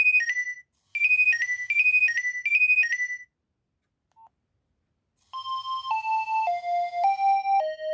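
Nokia 2300 mobile phone ringtones: a high, rapidly warbling phrase repeats three times and stops. After a pause of about two seconds, a different, fuller ringtone melody begins with notes stepping downward over a pulsing beat.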